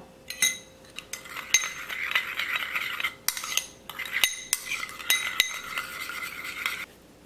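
Metal spoon stirring a liquid sauce in a ceramic bowl: steady scraping with repeated ringing clinks of spoon against porcelain, stopping shortly before the end.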